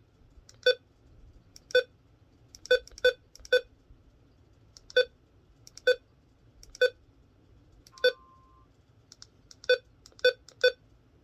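A string of short, sharp electronic blips, about one or two a second at uneven spacing, from the hobbyist's radio and computer monitoring setup. About eight seconds in there is a brief faint beep.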